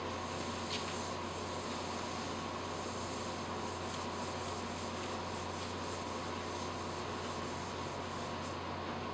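Handheld whiteboard eraser wiping marker writing off a whiteboard in quick repeated strokes, over a steady low room hum.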